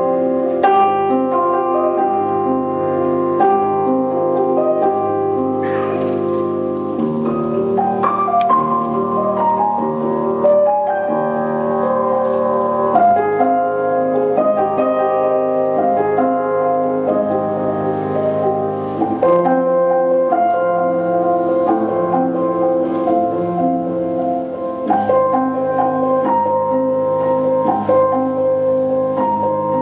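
Piano music: held notes and chords that change every second or two, the score for a contemporary dance.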